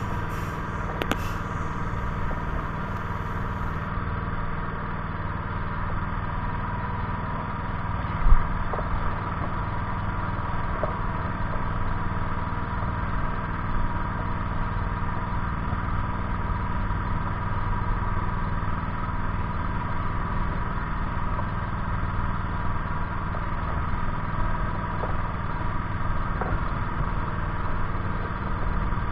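Small engine on a fishing boat running steadily at idle, with one short knock about eight seconds in.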